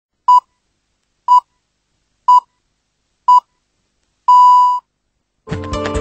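TV channel's time signal: four short high beeps one second apart, then a longer fifth beep at the same pitch. Music starts near the end.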